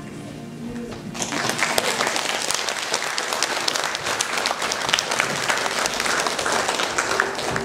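Audience applause: many hands clapping, starting about a second in as the background music drops away, with the music coming back near the end.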